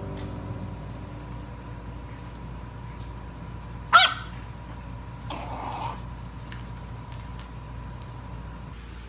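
A French bulldog puppy gives one sharp, high-pitched bark about four seconds in, then a short, rough, breathy noise a second later.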